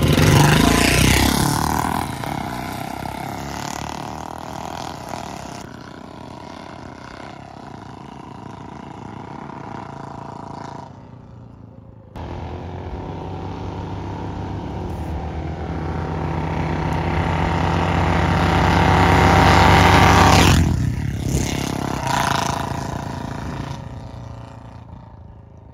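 Two Royal Enfield Bullet single-cylinder motorcycles with short-bottle silencers and C-bend pipes pulling away together and fading into the distance. After a sudden cut they ride back, growing louder to a peak about twenty seconds in, then fading as they pass.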